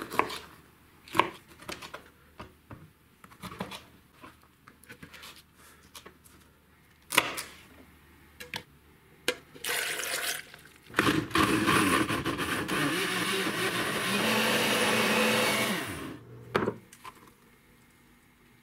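A knife slicing tomatoes on a plastic cutting board, with scattered knocks, then water poured into a blender jar. About halfway through, a Hamilton Beach countertop blender runs loud and steady for about five seconds, then stops suddenly.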